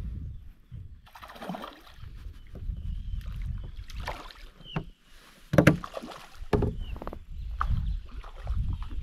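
Water splashing and sharp knocks as a hooked boga is played and reeled in to the side of a small boat, over wind rumbling on the microphone; one sharp knock about halfway through is the loudest.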